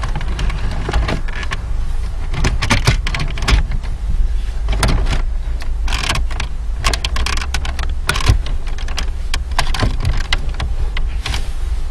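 A car radio head unit being slid and pressed into its dashboard slot: irregular plastic and metal clicks, knocks and scrapes, over a steady low rumble.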